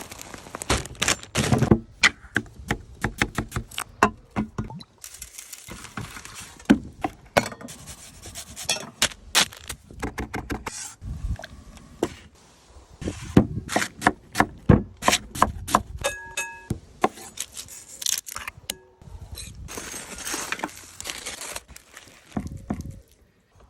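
Kitchen food-prep sounds: a rapid series of knocks, clicks and clatter from utensils and cookware, with stretches of hissing or rustling, and a few short electronic beeps about two-thirds of the way through.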